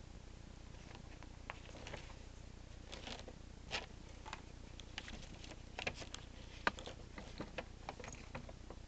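Faint, irregular small clicks and scrapes of a disassembled phone's circuit board and small parts being handled on a work surface, over a low steady hum.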